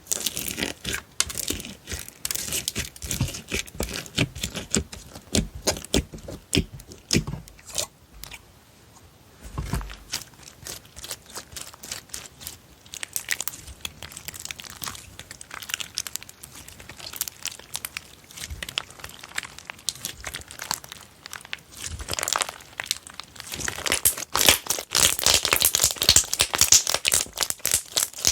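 Hands squeezing, stretching and pressing slime, giving a dense run of crackling, crinkling pops and clicks, busiest and loudest near the end.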